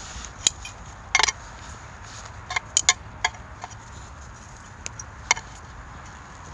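Metal tongs clinking and tapping against a shichirin's metal grill grate and tray: a scattering of sharp clicks, with a quick rattle of several about a second in.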